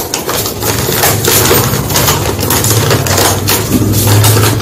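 A sheet of paper crinkling and rustling close to the microphone as it is handled and unfolded, a rapid, irregular run of crackles, over a steady low hum.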